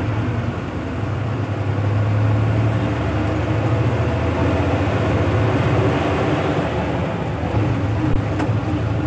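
Inside a moving bus: the engine's steady low drone under a rushing of road and wind noise, a little louder from about two seconds in, with a short knock near the end.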